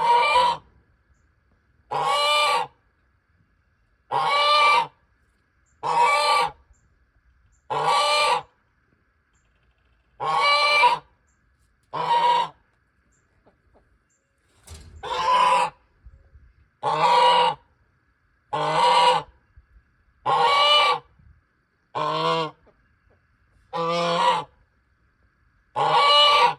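A goose honking over and over, one call about every two seconds, each call under a second long, with a slightly longer pause about halfway through.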